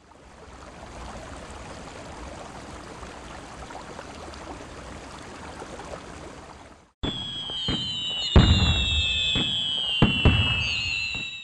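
A steady rushing noise for about seven seconds that stops abruptly. It is followed by a series of sharp bangs, about five of them, over several high whistling tones that slowly fall in pitch.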